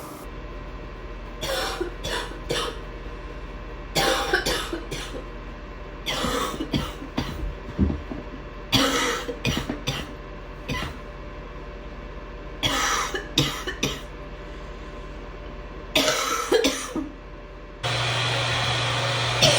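A person coughing in repeated fits of two to four harsh coughs each, about six fits in all, with pauses between them: a persistent cough. Near the end a steady hum and hiss starts suddenly.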